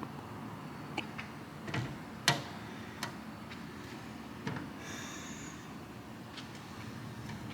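A few scattered light clicks and knocks over a steady low background noise, the sharpest just over two seconds in, with a brief high squeak about five seconds in.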